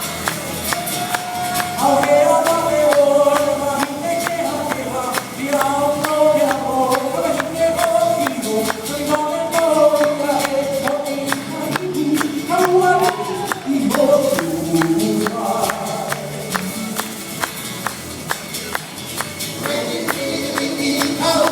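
Hawaiian song sung by a male singer, with 'uli'uli (feathered gourd rattles) shaken by hula dancers in a steady beat of several shakes a second.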